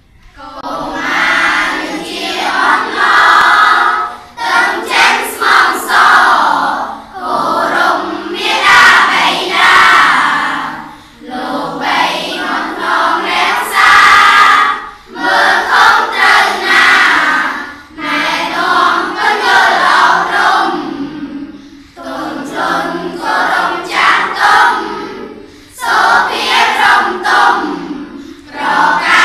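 A class of schoolchildren chanting a Khmer poem together in unison, in the sung pumnol metre, phrase by phrase with a short breath-pause every two to four seconds.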